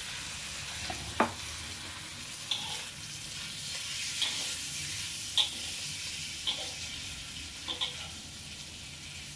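Glass noodles and vegetables sizzling in a large wok, with a spatula scraping and knocking against the wok about once a second as the stir-fry is turned.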